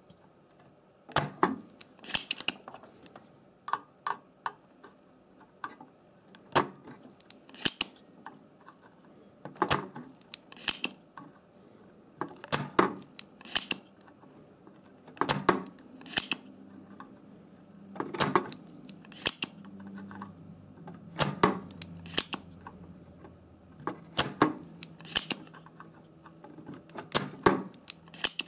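Spring-loaded desoldering pump (solder sucker) snapping repeatedly as it sucks molten solder from a chip's through-hole pins on a circuit board. Sharp clicks come every second or two, often two in quick succession.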